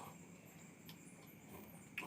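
Near silence: faint background hiss with a couple of soft clicks.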